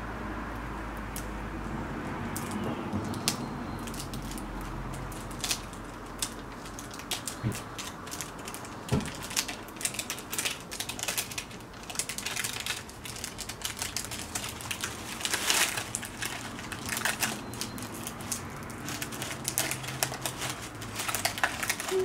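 Packaging of a perfume box being handled and opened by hand: irregular crinkling, rustling and clicking of paper and cardboard, sparse at first and busier from about a third of the way in.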